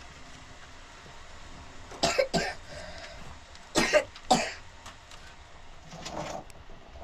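A person coughing in two short double bouts about two seconds apart, with a fainter cough near the end.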